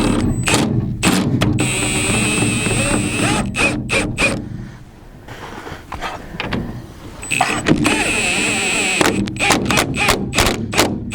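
Cordless power driver fastening hinge bolts: two spells of steady high motor whine, each followed by rapid sharp clacking, the clacking running on through the last few seconds.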